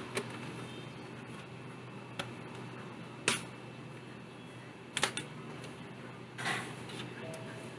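Scattered sharp clicks of hard plastic and tools being handled while a laptop is worked on, about five over several seconds, with a short scraping rustle about six and a half seconds in. A steady low hum runs underneath.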